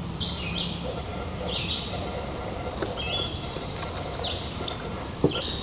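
Songbirds calling in a flooded marsh woodland: short, high, repeated calls about once a second, with a thin trill in the middle, over a low steady background.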